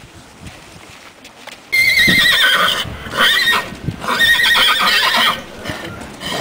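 A stallion whinnying repeatedly, loud high-pitched quavering calls that begin about two seconds in, following a few quieter seconds.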